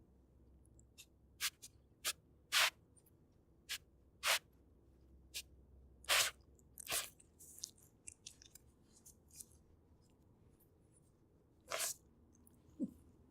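Jack Russell terrier making short, sharp sniffing, licking and chewing noises while mouthing a toy, about a dozen scattered bursts with gaps between them and a longer pause near the end.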